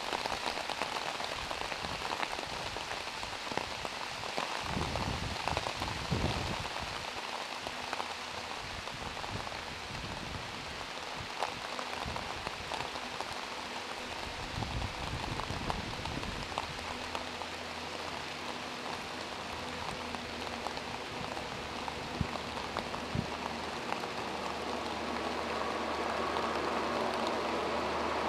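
Steady rain falling and pattering on surfaces. In the second half a low, steady engine hum of an approaching diesel train comes in and slowly grows louder.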